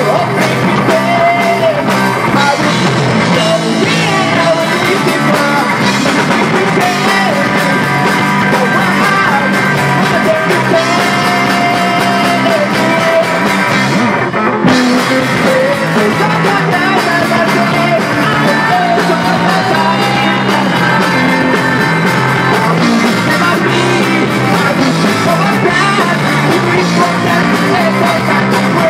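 Live rock band playing: electric guitars, bass and drums with a male singer singing over them.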